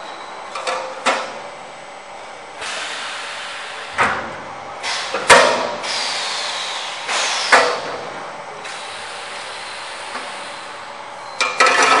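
Sheet-metal clinching machine joining the seams of a galvanized steel HVAC damper box: a series of sharp metallic clunks, the loudest about five seconds in and a quick cluster near the end, with stretches of steady hiss between strokes.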